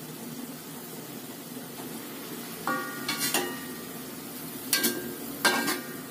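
Water spinach frying and sizzling in sauce in a metal wok, stirred with a metal spatula that knocks against the pan about four times in the second half, the first knock ringing briefly.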